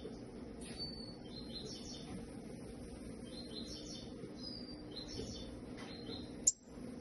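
A caged songbird singing in short bursts of quick, high chirps, a burst every second or so. A single sharp click near the end.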